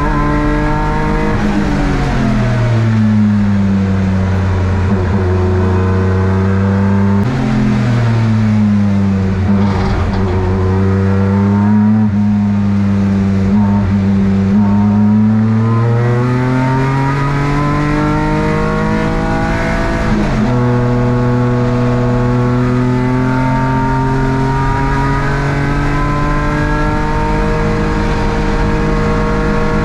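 BMW S54 straight-six in an E36 race car at racing speed. The engine note falls as the car slows and jumps up sharply about seven seconds in, as on a downshift. It then climbs under acceleration, drops suddenly about twenty seconds in at an upshift, and climbs steadily again.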